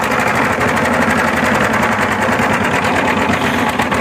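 Single-cylinder diesel engine of a walk-behind power tiller running steadily, with a fast, even chugging beat.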